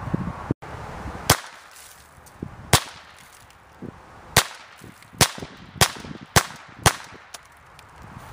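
Seven sharp cracks of .22 LR shots from a Henry AR-7 semi-automatic survival rifle, coming quicker toward the end. No explosion follows: the rounds hit the Tannerite but do not set it off.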